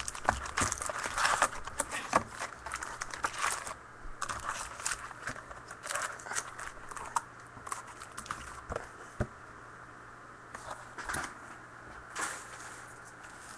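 Trading-card packs being opened by hand: crinkling and tearing of the pack wrappers and handling of the cards, as a run of short crackles, busiest in the first few seconds and sparser after.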